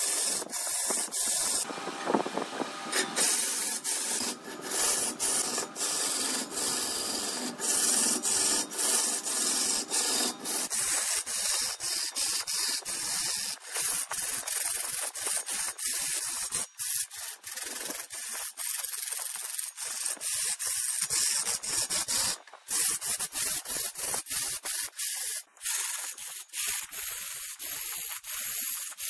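Woodturning on a large wood lathe: a steady hissing, scraping rub against the spinning wood, fuller-bodied for the first ten seconds or so and thinner after, with many brief breaks.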